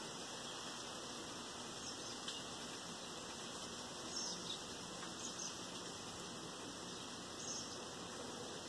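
Steady hiss of heavy rain falling on a lawn and street, with a few short high-pitched chirps scattered through it.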